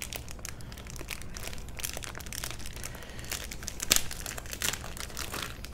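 Clear plastic packaging bag crinkling as it is peeled and pulled off a GPU water block: a continuous run of quick, irregular crackles with a sharper crackle about four seconds in.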